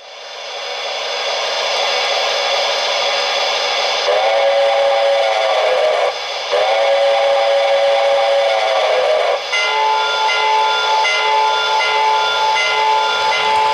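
Lionel PRR S2 turbine model's Legacy RailSounds: a steam hiss swells up over the first couple of seconds, then the steam whistle blows two long blasts with a short break between them. After the second blast, a tone pulses on and off several times a second.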